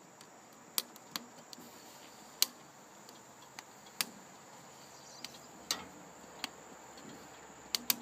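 Long metal tongs clicking against the grill grates and each other while turning bell peppers on a gas grill, about ten sharp separate clicks, over a faint steady high-pitched hiss.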